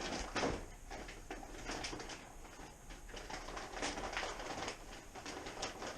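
Scattered light rustling and clicks of hands handling parts and packaging, likely the new exhaust being brought out of its wrapping.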